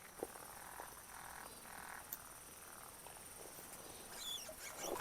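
Faint night chorus at a pond: a steady high pulsing insect trill with a few soft frog-like calls.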